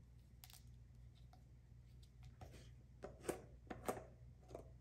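Faint, scattered clicks and rustles of a plastic shaving-soap tub being handled and opened, a little louder around three and four seconds in.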